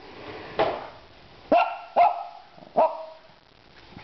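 A dog barking four times in short, high-pitched barks, spaced about half a second to a second apart.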